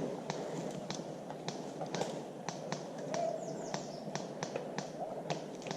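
Airsoft guns firing semi-auto: a run of sharp clicks, about three a second, some louder and closer than others.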